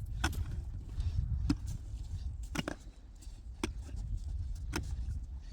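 A series of sharp knocks, roughly one a second, over a low steady rumble.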